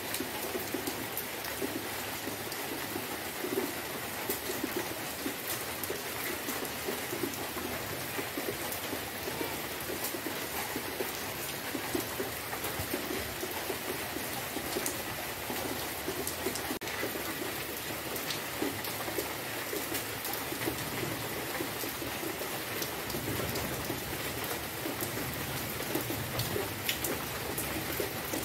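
Steady rain falling on grass and puddles, with the taps of many single drops close by.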